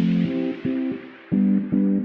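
Intro music: a rhythmic guitar-and-bass riff of short, repeated notes.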